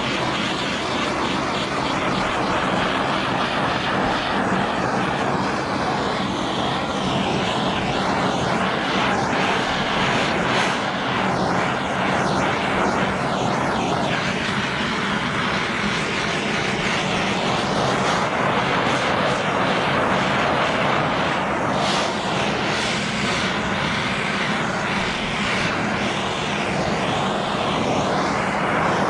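Handheld gas torch burning with a steady roar as its flame is worked over faded plastic fender flares to restore their colour.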